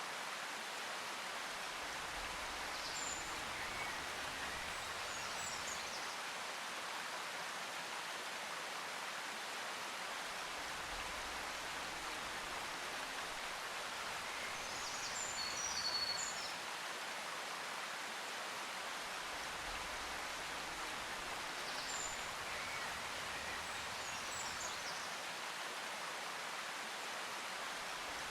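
Relaxation nature-sounds track: a steady rush of flowing water with a few short, high bird chirps, the same chirps recurring about 19 seconds apart as in a loop. Under it, a faint low hum comes and goes every several seconds.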